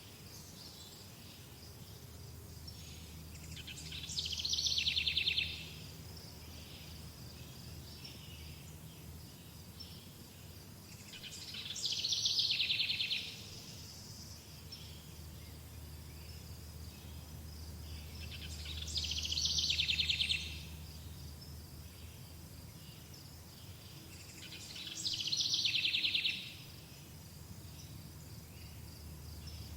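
Summer outdoor ambience. A rapid, high trilling call comes four times about seven seconds apart; each one swells over a second or so and then cuts off suddenly. Underneath runs a faint, steady high chirring and a low hum.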